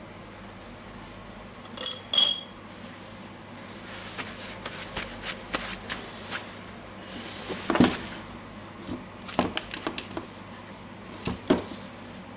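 Parts of a disassembled DeWalt DCH273 rotary hammer being handled and set down on a wooden workbench. About two seconds in there are two sharp metallic clinks with a brief ring. Scattered knocks and rattles follow, the loudest about two-thirds of the way through and again shortly before the end.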